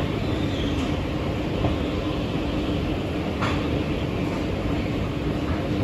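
Long metro escalator running: a steady mechanical rumble with a low hum, and a single click about three and a half seconds in.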